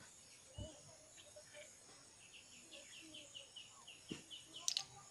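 Quiet outdoor ambience with a bird giving a quick run of about ten repeated chirps in the middle. A soft thump comes early and another late, and a few sharp clicks of snail shells being handled come near the end.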